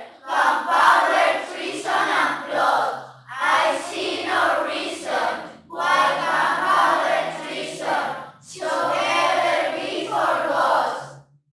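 A group of voices singing in phrases, over a few steady low notes, stopping abruptly near the end.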